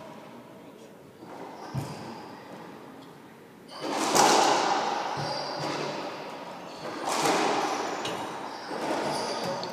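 Racquetball rally: the rubber ball is struck hard by racquets and smacks off the court walls, several loud hits with echoing ringing after each, the loudest about four seconds in.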